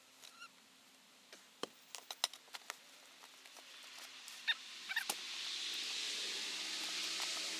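Scattered snaps, clicks and crackles of brush and debris being handled while ferns are dug out. A steady hiss swells in from about halfway through and grows to the loudest part near the end.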